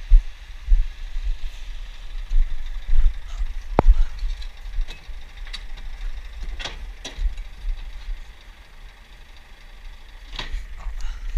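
Uneven low rumble with a handful of short knocks spread through it.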